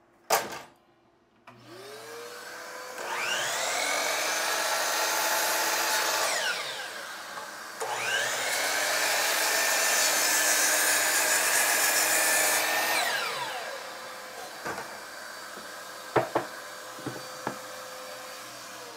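A sharp knock, then a DeWalt sliding compound miter saw starts up with a rising whine and cuts through plywood twice, each cut a loud rasping stretch of several seconds. After the second cut the blade keeps spinning with a steady hum while a few knocks of wood being handled come near the end.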